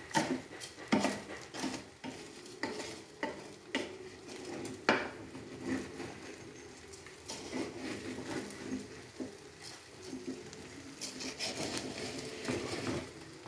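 A wooden spoon stirring raw rice grains and chunks of cooked beef around a metal cooking pot: grains scraping and rustling, with irregular knocks of the spoon against the pot.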